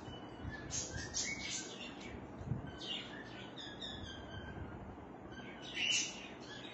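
Birds chirping: scattered short, high chirps and calls over a steady background hiss, with the busiest burst near the end.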